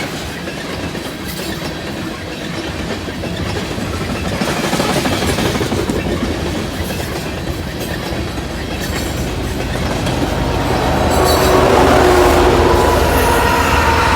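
Loaded coal cars of a freight train rolling past, their wheels clacking over the rail joints with a steady rumble. About ten seconds in it grows louder and a few held, ringing tones join in, like wheel squeal.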